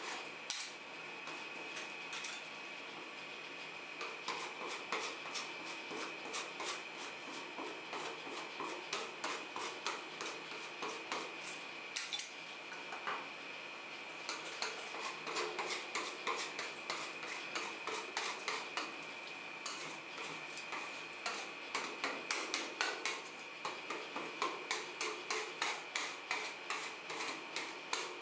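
Metal spatulas scraping and tapping on the frozen steel plate of a rolled-ice-cream pan as the ice-cream base is spread and worked thin. The clicks and scrapes are scattered at first, then come in quick, louder runs through the second half, over a steady high whine.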